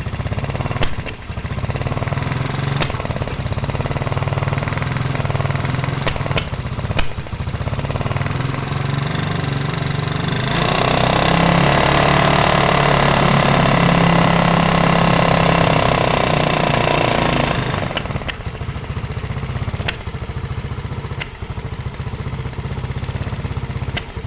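Yamaha Mio Soul scooter's single-cylinder engine running unevenly, coughing with scattered sharp pops. Midway it runs louder and faster for about seven seconds, then drops back. The coughing comes with smoke blowing out of the carburetor, a fault whose cause the owner has not yet found.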